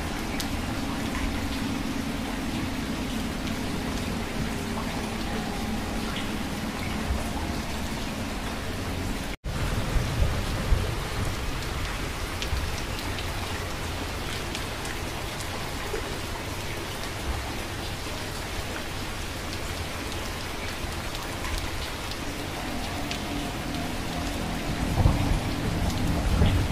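Steady rain with low rumbles of thunder, the rumble swelling just after the sound cuts out for an instant about nine seconds in and again near the end.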